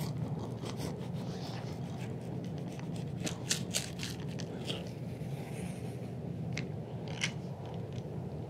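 Screen spline being pressed with a hand tool into a screen frame's channel over fiberglass mesh: scattered small clicks and crackles, heaviest a few seconds in and again near the end, over a steady low hum.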